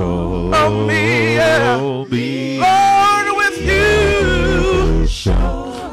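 Gospel praise team singing: a lead singer and backing singers hold long notes with vibrato, with a short break between phrases about two seconds in.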